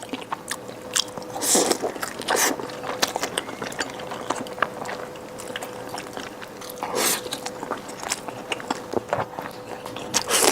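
A person biting and chewing food, mouth clicks and smacks with a few louder crunchy bites, over a faint steady hum.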